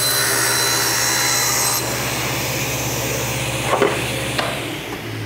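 Table saw ripping through half-inch MDF. The blade's hiss ends about two seconds in as the cut finishes, the saw runs on with a steady hum, there are a couple of knocks, and the motor's hum fades near the end.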